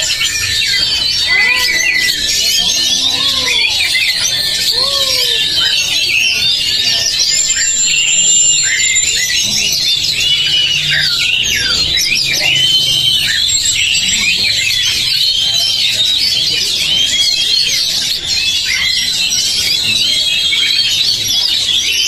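Many caged oriental magpie-robins singing at once: a dense, unbroken chorus of varied whistles and chirps. Lower rising-and-falling calls repeat about every second and a half in the first few seconds.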